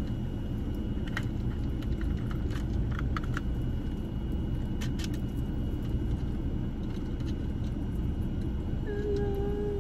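Steady low rumble of a vehicle's engine and air conditioning running in the cabin, with scattered light plastic clicks and rattles as a small toy is handled. Near the end a steady pitched tone sounds for under two seconds.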